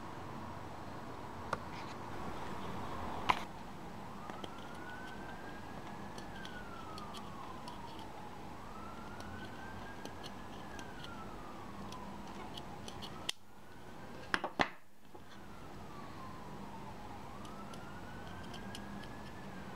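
A siren wailing, its pitch climbing and then sliding slowly down over about four seconds, three times. A few sharp clicks, the loudest about three seconds in.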